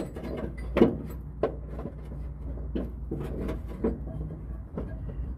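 Metal hand tools clinking and clattering while being sorted through for a wrench, with several sharp knocks, the loudest about a second in.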